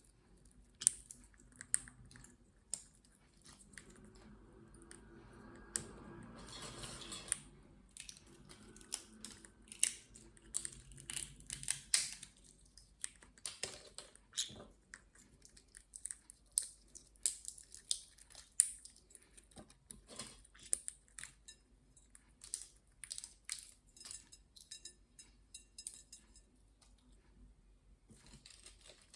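Green-cheeked conure crunching and cracking walnut shell in its beak: many sharp, irregular cracks and clicks. A few seconds in there is a stretch of rustling.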